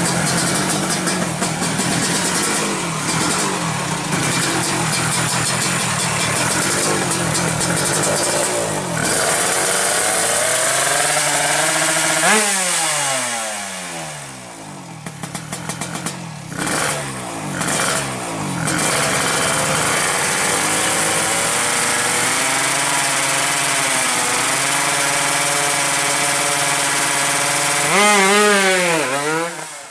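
Suzuki Satria 125cc two-stroke drag bike running through an aftermarket expansion-chamber exhaust. The revs fall away about a third of the way in, the throttle is blipped in short bursts, and it runs steadily again before a final rise in revs with wavering pitch near the end.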